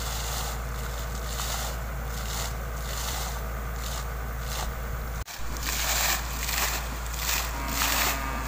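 Water surging in regular pulses out of a solar borewell pump's vertical discharge pipe and splashing onto the mud, about three surges every two seconds. The splashing is louder after a break about five seconds in.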